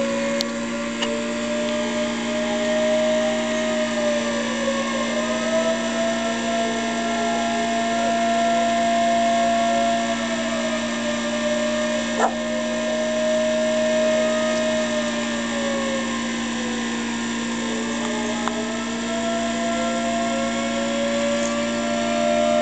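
Siren wailing: long, slow rising and falling tones, two of them overlapping, over a steady hum.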